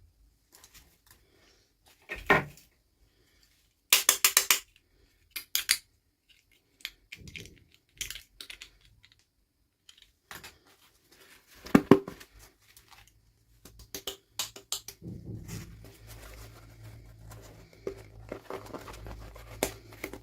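Small plastic toy pieces and packaging handled on a table: scattered clicks, taps and short rattles, with a quick run of clicks about four seconds in and a low hum in the last few seconds.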